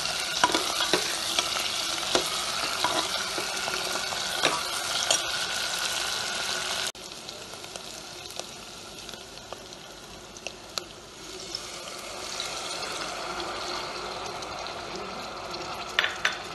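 Fried boiled eggs sizzling in hot oil and masala in an aluminium pressure cooker, with a steel ladle scraping and clicking against the pot as they are stirred. About seven seconds in, the sizzle cuts off suddenly to a quieter simmer once water has been added, with a few ladle clicks near the end.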